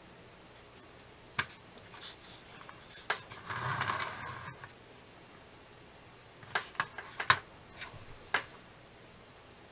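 Small objects being handled: scattered light clicks and taps, with a short rustle about three and a half seconds in and a quick run of clicks later on.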